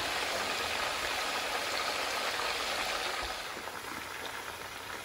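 Hot oil sizzling steadily around a whole steamed chicken (chargha) frying in a pan to crisp it, easing slightly toward the end.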